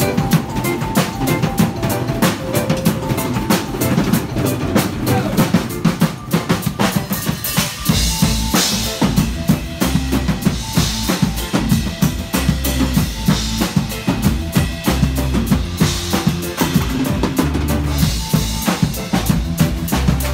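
A full drum kit played live, a fast, dense beat of snare, bass drum and cymbals. About eight seconds in, deep bass notes join and cymbal crashes ring out every two to three seconds.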